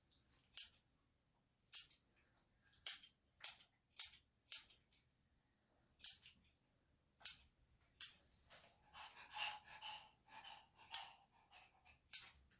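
Grooming scissors snipping through dog hair: about a dozen crisp, high-pitched snips at an uneven pace, some in quick pairs.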